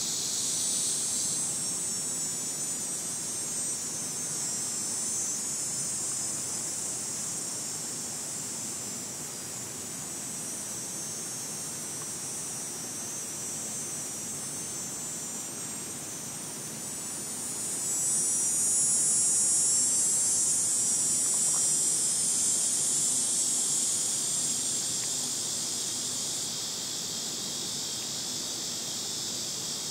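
Insects singing in a steady high-pitched drone, with a cicada's buzzing call swelling louder a little past halfway and easing back a few seconds before the end.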